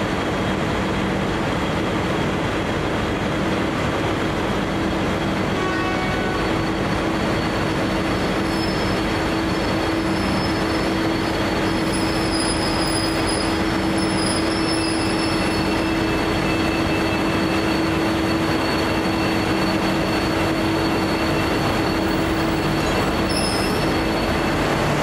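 V/Line N Class diesel locomotive, with its EMD 645 V12 two-stroke engine, running steadily at the platform as a constant loud drone with a low hum. A thin, high-pitched squeal comes and goes partway through.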